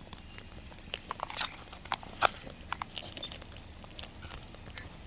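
Birds crunching and cracking seed in their beaks: irregular sharp crunches and clicks, a few louder cracks among them.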